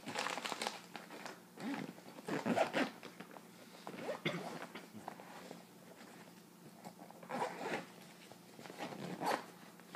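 A fabric medical bag and its contents being rummaged through by hand: irregular rustling and scraping in short bursts a few seconds apart.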